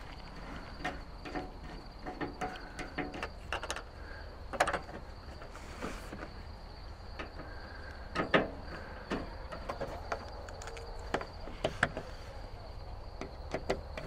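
Hand screwdriver driving the hold-down screws of a plastic rooftop RV air-conditioner cover, with scattered clicks and knocks from the tool and the plastic shroud; the loudest knocks come about four and a half and eight seconds in. A steady faint high whine sits behind.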